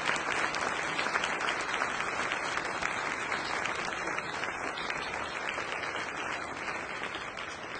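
Audience applauding: many people clapping together, steady and then slowly tapering near the end.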